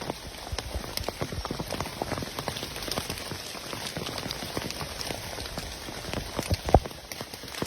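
Rain falling, a dense patter of small drops ticking over a steady hiss, with one sharper knock near the end.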